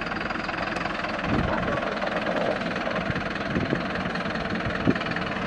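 Mercedes Vario 818 truck's four-cylinder diesel engine running at low revs as the camper crawls slowly over a rough gravel track, with a few short knocks over the steady engine sound.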